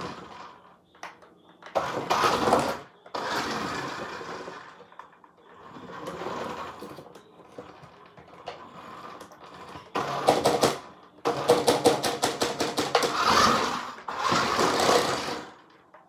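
Toy RC monster truck's electric motor and gears whirring in short bursts of one to two seconds. From about ten seconds in, the bursts carry a fast clicking rattle.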